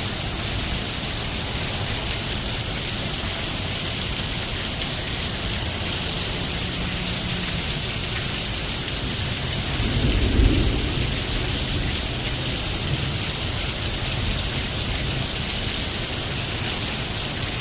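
Steady rain falling, with a low rumble of thunder about ten seconds in.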